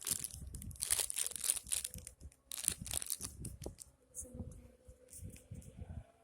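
Plastic packaging crinkling and rustling as it is handled, dense for the first three seconds or so, then fainter and more scattered.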